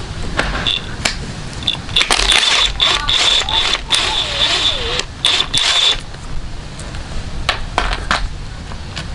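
Metal tools and suspension parts being handled: a run of sharp clicks, knocks and scraping, densest and loudest between about two and six seconds in.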